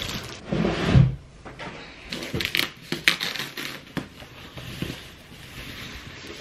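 Packaging rustling and crinkling as a cutting machine is pulled out of its thin white wrapping sleeve, with a thump about a second in.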